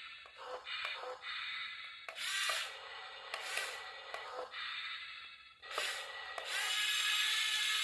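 Small electric gear motors of a radio-controlled model vehicle whirring in short start-stop bursts, then running steadily from about two-thirds of the way in.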